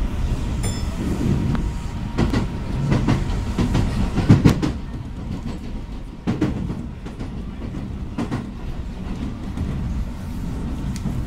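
Keio 8000 series electric train running, heard from inside the car: a steady low rumble with clacks, often in quick pairs, as the wheels cross rail joints, loudest about four seconds in.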